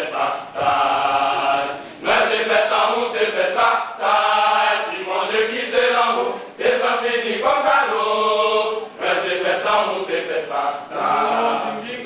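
A men's church choir singing together in short phrases of about two seconds, with brief breaks between them.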